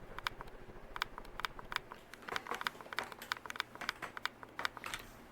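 Harbor Breeze Sienna ceiling fan running: a faint steady motor hum under a scatter of light, irregular ticks and clicks, several a second.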